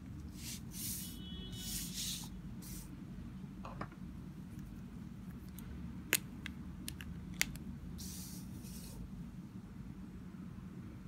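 Paper cards sliding and being pushed across a tabletop in a few short swishes, with two sharp taps in the middle, over a steady low hum.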